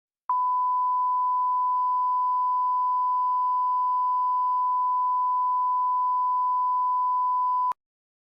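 A single steady electronic alert tone at about 1 kHz, held at a constant pitch and level for about seven and a half seconds, then cutting off abruptly.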